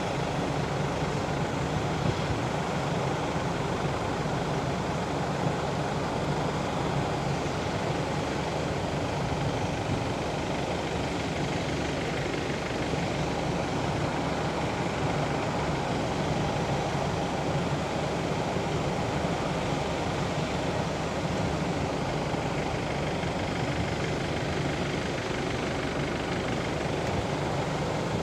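Siemens overburden spreader and its conveyor belts running, a steady mechanical drone with a low hum, as the discharge boom dumps spoil.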